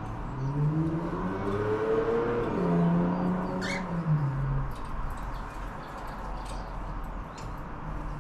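Cockatiels giving a few short, sharp chirps, over a low droning sound that rises in pitch and then falls again across the first five seconds.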